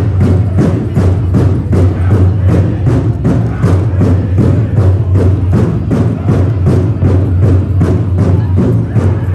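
Powwow drum beaten in a steady, even rhythm of about three strokes a second.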